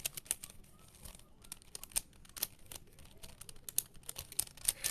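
Rubik's cube being handled: irregular light plastic clicks and rustles, several a second.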